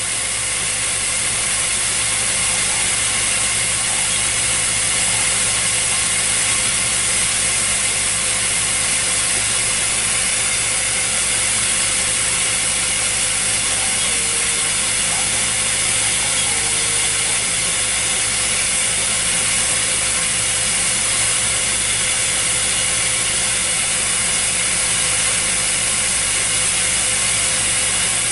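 Steady hiss of the gas burner heating spinning glass tubes. Under it is the steady hum of the SincTech ADV-2A glass lathe's drive, whose tone dips briefly twice about halfway through.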